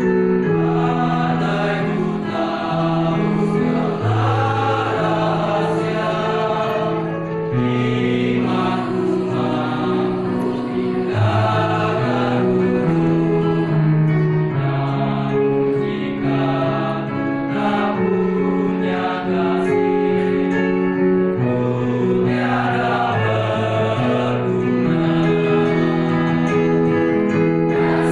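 Youth church choir singing a hymn in several parts, holding long notes that move together from chord to chord.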